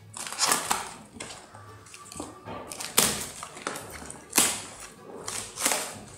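Cardboard shipping box wrapped in plastic packing tape being torn open by hand: several sharp ripping bursts of tape and cardboard, with rustling and handling between them.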